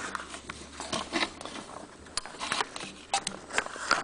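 Irregular small clicks and rustles of hands working a rubber fuel hose into a retaining clamp on a Champion 3100 watt generator.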